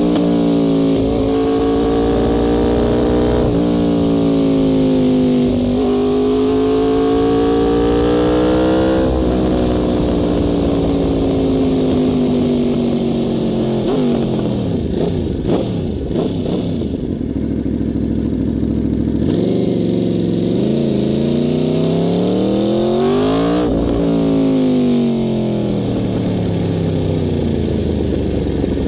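Aprilia Tuono V4 R's V4 engine pulling hard on a highway run. The pitch climbs and drops sharply several times as it shifts through the gears, falls away for a while as it slows, then climbs again with one more sharp drop near the end.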